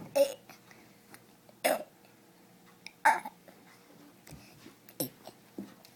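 A young girl burping the letters of the alphabet: four short, loud burps about a second and a half apart.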